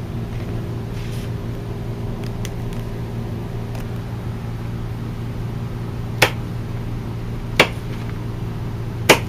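Kitchen knife cutting green beans on a cutting board: a few sharp taps of the blade striking the board, faint at first and then three clear ones about a second and a half apart in the second half, over a steady low hum.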